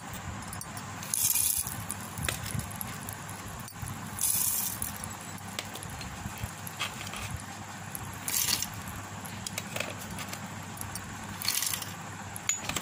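Roasted seeds and nuts poured into a stainless-steel mixer-grinder jar, rattling against the metal in four short bursts about three seconds apart.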